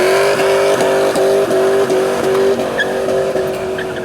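V8 engine held at high revs with a steady, loud note that breaks briefly about four times a second.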